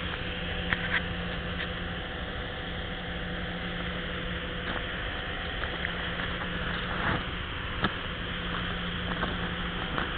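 Home snowmaking setup running: a steady hiss with a faint steady hum under it, from high-pressure snow guns and their pump. A few light ticks break in here and there, the sharpest about three-quarters of the way through.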